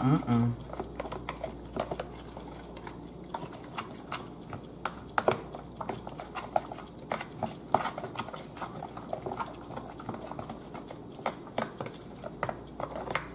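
A utensil stirring chopped onion and garlic into a sauce in a plastic food container: light, irregular clicks and taps of the utensil against the plastic.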